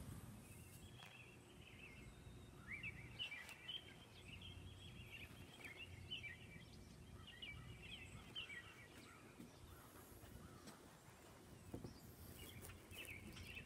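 Faint bird chirping: quick clusters of short, high twittering notes over several seconds, a lull, then another burst near the end, over a low background rumble.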